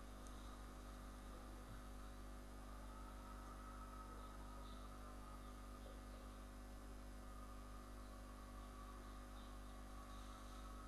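Faint steady mains hum with low hiss.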